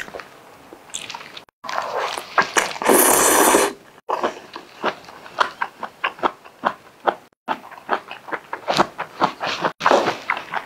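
Close-miked eating of luosifen rice noodles: a loud slurp of noodles about two seconds in, then wet chewing and lip smacks. The sound is broken by a few brief cuts to silence.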